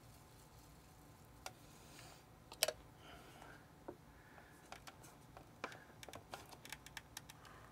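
Light plastic clicks and taps from handling PVC pipe and fittings on a pump strainer, with one sharper knock about two and a half seconds in and a run of small ticks in the second half.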